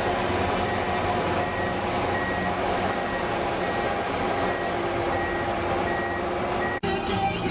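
Bulldozer's diesel engine running steadily with its reversing alarm beeping in short, evenly spaced beeps. Near the end the sound cuts off abruptly and music begins.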